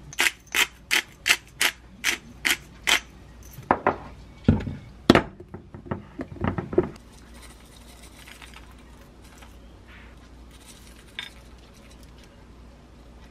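Plastic squeeze bottle of balsamic glaze squeezed in quick pulses, about eight sharp spurts in three seconds, followed by a handful of louder knocks and clinks as a glass jar is handled, then faint scraping.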